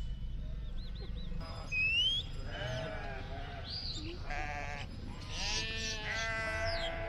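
A flock of sheep bleating, many calls overlapping, growing thicker from about halfway through.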